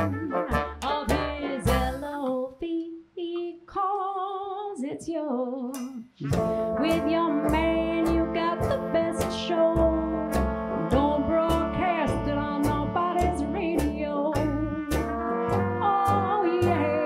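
Live traditional jazz band playing: trombone, trumpet, clarinet, singer, banjo, upright bass and drums. A break about three seconds in thins the band to a single wavering line, then about six seconds in the full ensemble comes back with long held horn notes over a steady bass beat.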